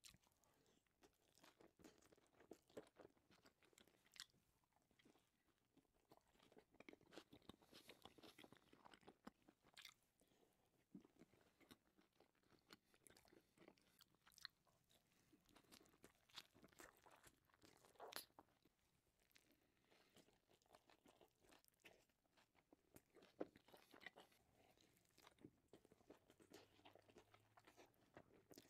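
Quiet, close-miked chewing and biting of a taco: crunching, crackling mouth sounds with scattered sharp clicks as the tortilla and filling are chewed.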